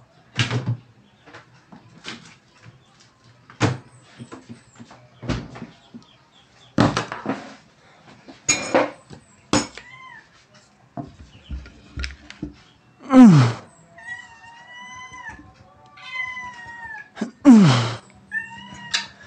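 Knocks, taps and clinks of a spoon, a ceramic mug and a small plastic Yakult bottle being handled on a table. In the second half come a few short pitched calls that bend like a cat's meow, and twice a loud sweep that falls steeply in pitch.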